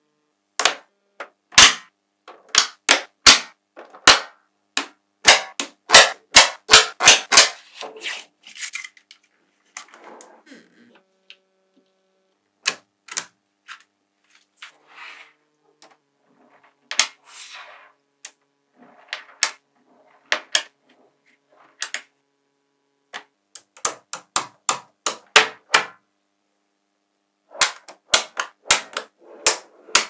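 Small magnetic balls snapping together in sharp clicks as strips of them are pressed into place, coming in irregular clusters with a few brief rattles of beads shifting and quiet gaps between.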